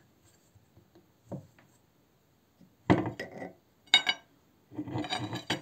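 Hand-cranked metal meat grinder being taken apart: its metal parts scrape and clatter, with one sharp ringing clink about four seconds in and a longer scraping rattle near the end.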